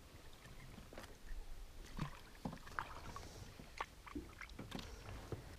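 Faint water lapping against a small boat's hull, with scattered light knocks and clicks at irregular intervals.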